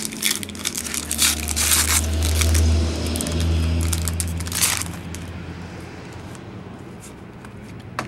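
A trading-card pack's wrapper being torn open and crinkled by hand, in a run of crackly rustles for about the first five seconds with a low rumble under the middle. It quietens after that, with a single click near the end.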